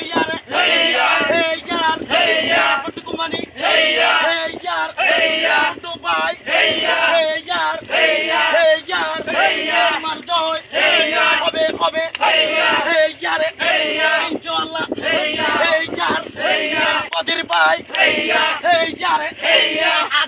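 Several voices singing together in a continuous, wavering chorus.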